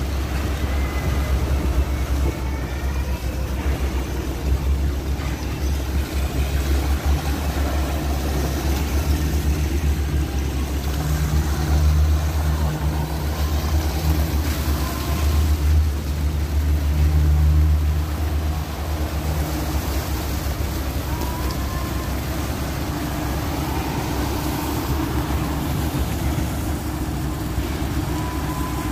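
Sany concrete mixer truck's diesel engine running with a deep, steady rumble that grows louder for several seconds around the middle, while water gushes from the drum's discharge chute as the drum is flushed out.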